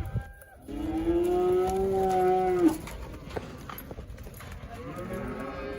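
Cattle bawling: one long moo of about two seconds that cuts off abruptly, then another moo beginning near the end and rising in pitch.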